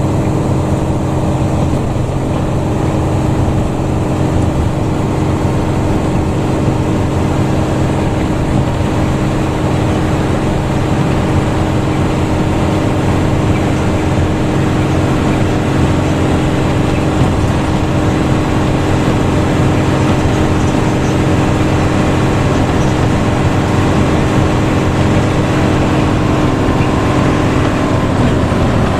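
Intercity bus's diesel engine running steadily with its growling ('ngorok') exhaust, a constant loud drone.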